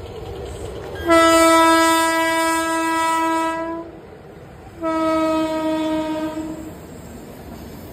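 Horn of an Indian Railways electric locomotive hauling a goods train: two long blasts on one steady pitch, the first about two and a half seconds, the second about two seconds, over the rumble of the approaching train.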